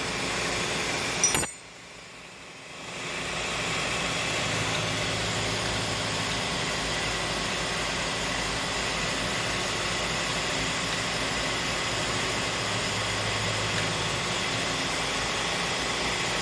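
3-axis CNC milling machine running a 3D scallop finishing cut: a steady hum of the spindle and cutter with a faint steady whine. A short click just over a second in, then the sound drops out for about a second and a half before the steady running resumes.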